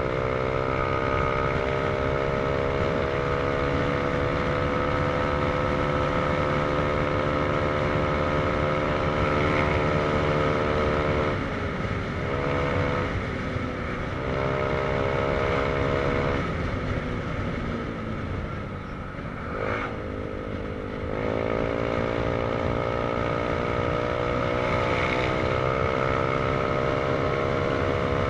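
Motorcycle engine running at cruising speed, heard from the bike with road and wind noise. About a third of the way in the throttle is eased off twice briefly. Then comes a longer slowdown with the engine pitch falling and a single click, and the engine picks up again with rising pitch.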